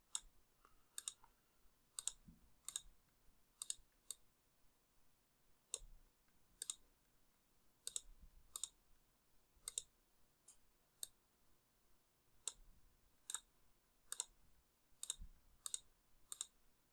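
Computer mouse button clicking, sharp separate clicks at an irregular pace, some in quick pairs, as items are picked and added in a software dialog.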